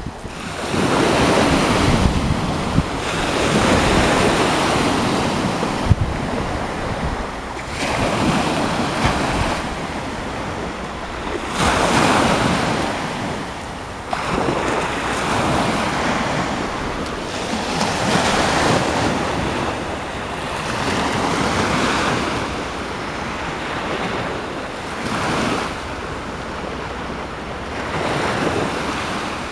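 Black Sea waves breaking and washing ashore in repeated surges every few seconds, with wind buffeting the microphone.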